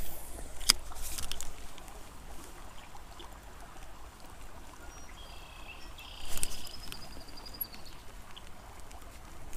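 Small stream running steadily, with a couple of sharp clicks near the start and a spinning reel being cranked about six seconds in: a short whirring rattle with a wavering high whine.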